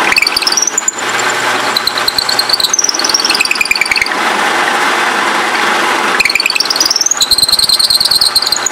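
Drill press boring a deep 10 mm hole into maple, its motor running steadily under a high squeal that glides up and down in pitch. The squeal eases for a couple of seconds midway and comes back, rising, about six seconds in.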